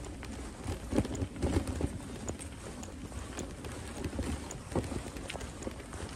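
Footsteps of a person walking on a park path, with a low wind rumble on the microphone; the heaviest thumps come about a second in and again around four to five seconds in.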